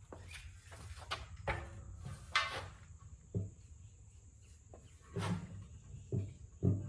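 Scattered knocks and clatter of parts and tools being handled while a portable concrete mixer is assembled by hand, several short sounds a second or so apart.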